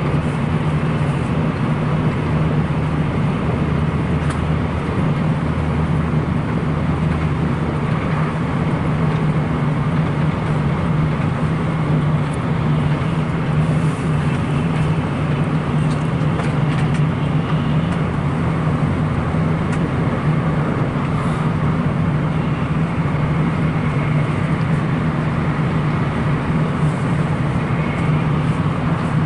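Steady running noise of a Shinkansen bullet train at speed, heard inside the passenger cabin: an even rumble with a low hum.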